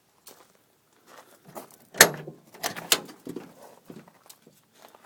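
Knocks and clunks of a truck's door and cab being handled. The loudest is a sharp knock about two seconds in, followed by a few more over the next second and fainter taps after.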